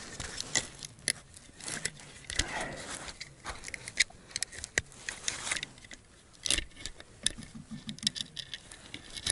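Scattered light clicks, knocks and rattling of small gear being handled, with a few sharper knocks at intervals.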